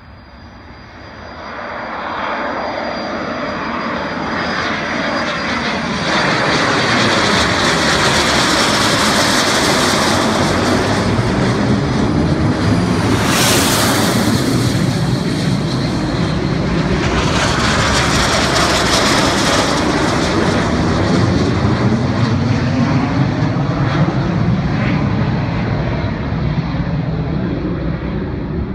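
Jet noise from a formation of Aero L-39 Albatros jet trainers during takeoff. The rush builds from about a second in and peaks sharply as the jets pass overhead around the middle. A second loud pass follows shortly after, then the noise fades slowly as they climb away.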